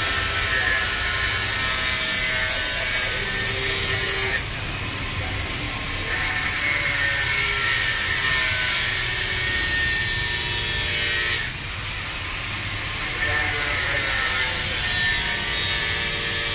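Socket ratchet clicking in a rapid rasp as the exhaust muffler's mounting bolt on a Honda Vario scooter is turned, in bouts with short breaks about four seconds in and again near twelve seconds.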